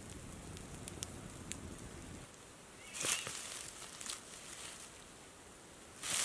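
Wood fire crackling under a hanging kettle, with a low rumble and scattered pops. After it stops, dry grass and leaf litter rustle and crunch in two bursts, about three seconds in and again near the end, as tortoises shuffle through it.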